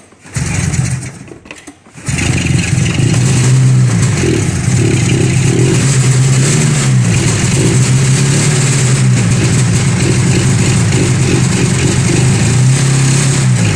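Vintage Polaris Indy snowmobile's two-stroke engine firing up on starting fluid sprayed into its carburettors. It catches, stumbles nearly to a stop about two seconds in, then catches again and keeps running, its revs rising and falling under the throttle.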